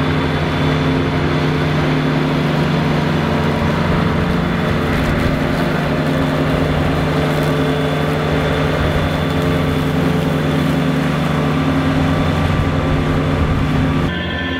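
Kubota BX23S subcompact tractor's three-cylinder diesel engine running steadily under load while its mid-mount mower cuts grass.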